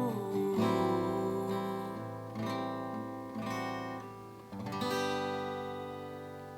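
Acoustic guitar strumming single chords a second or so apart, the last about five seconds in left to ring and slowly fade.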